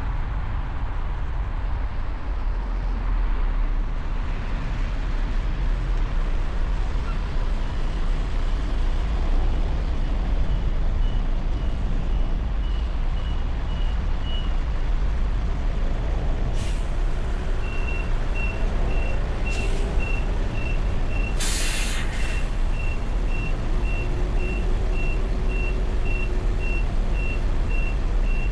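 City street traffic: a steady low rumble of engines. Over it an electronic beeper repeats about twice a second through the second half, like a truck's or bus's reversing alarm. Three short hisses come near the middle.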